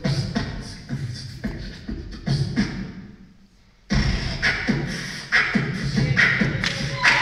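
Beatboxing into a microphone over the hall's sound system: a steady beat of mouth-made drum sounds, with low thumps and sharp hits. It drops out for about a second a little past the middle, then comes back in louder.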